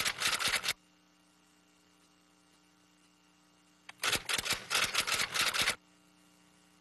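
Camera shutters firing rapidly in two bursts, one ending about a second in and one lasting nearly two seconds starting about four seconds in, with a faint steady hum between them.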